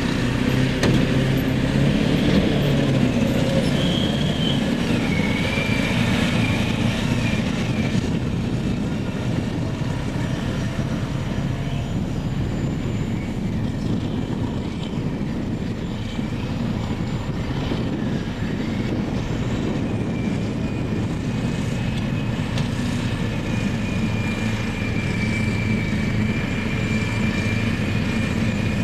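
Heavy diesel earthmoving machinery, a Caterpillar 631E wheel tractor-scraper and a Caterpillar D10N crawler dozer, running hard while loading. A thin, high metallic squeal, typical of the dozer's steel tracks, comes and goes near the start and again over the last third.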